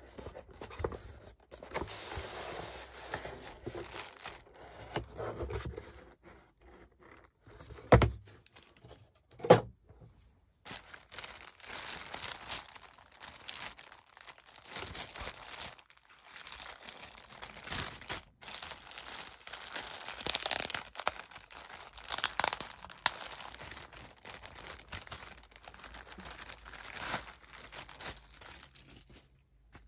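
Plastic bag and paper packaging crinkling and rustling as a headset is unwrapped by hand, with two sharp knocks about a second and a half apart roughly eight seconds in.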